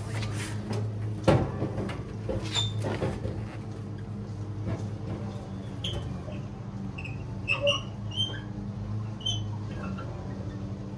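Knocks and clunks of a heavy bullbar being lifted and slid onto a 2010 Toyota Hilux's front mounting plates, with a sharp knock about a second in and smaller knocks soon after. Short high chirps or squeaks come in the second half.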